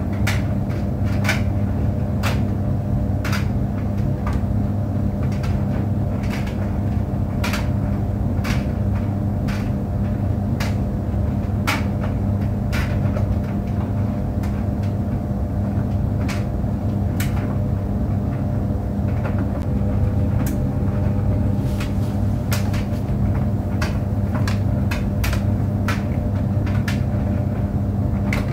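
Tumble dryer running: a steady low hum with a few fixed tones, and irregular light clicks and knocks as the load tumbles in the drum.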